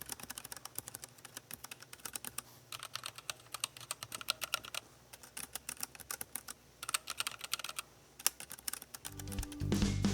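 Typing on a Keychron K3 low-profile keyboard with Keychron optical brown switches: runs of quick key clicks with short pauses between them. Background music comes in near the end.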